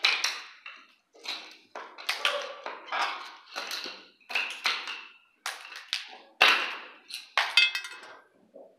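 Irregular sharp knocks and taps at a ceiling conduit box, about one or two a second, each ringing briefly in a bare room.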